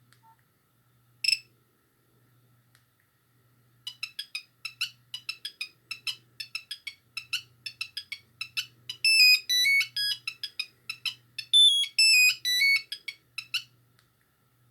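Nokia 6310i monophonic ringtone: a single short beep about a second in, then, from about four seconds, a fast melody of short staccato beeps that stops a second before the end.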